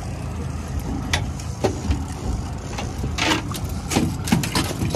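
Twin 200 hp outboard motors running steadily at trolling speed, with a few sharp knocks and clatters from fishing gear being handled, more of them in the second half.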